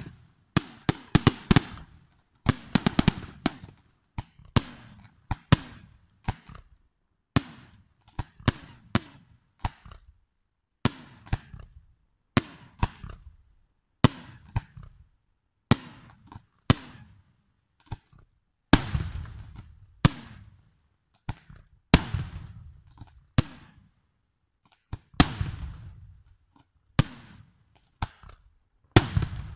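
Aerial firework shells bursting in a steady run of sharp bangs, each trailing off in a rolling echo. The bangs come in quick clusters at first, then about one a second.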